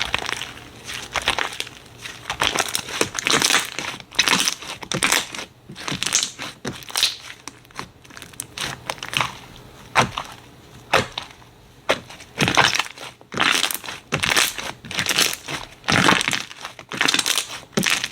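Slime being squeezed and pressed by hand, giving irregular bursts of crackling and popping.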